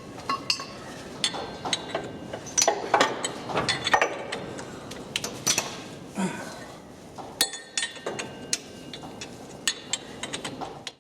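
Steel tools and parts being handled: irregular sharp metallic clinks and knocks, some ringing briefly.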